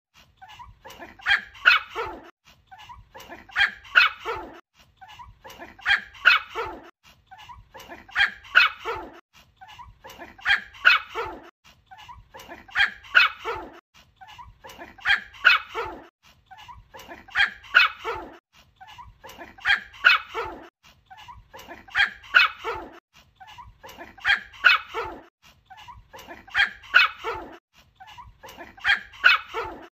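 Small white Pomeranian puppy yapping in short bursts of several quick high-pitched yaps, each ending in a lower bark. The bursts come very regularly, about every two seconds.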